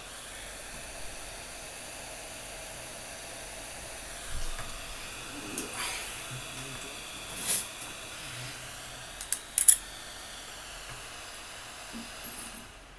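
Hot-air rework station blowing with a steady hiss, cutting off near the end, with a few sharp clicks partway through.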